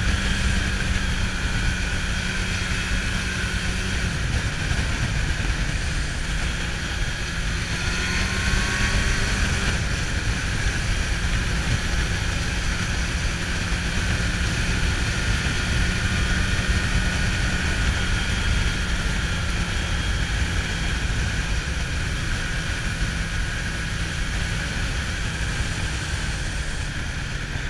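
Kawasaki Zephyr 750's air-cooled inline-four engine running at road speed, with wind noise. The engine note drops a little about four seconds in, then rises and falls back again around eight to ten seconds in as the throttle changes.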